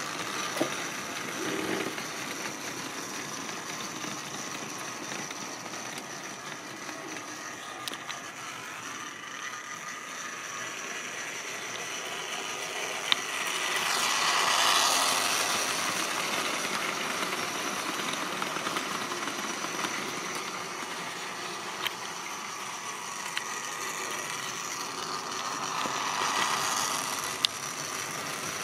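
Tri-ang model trains running on the layout's track: a steady mechanical running noise of motors and wheels on rail, swelling as a train passes close by around the middle and again near the end, with a few sharp clicks.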